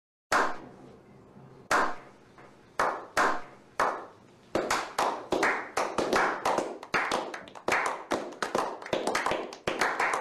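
A small group clapping hands in a slow clap: single claps about a second apart at first, quickening after about four seconds into fast, steady clapping.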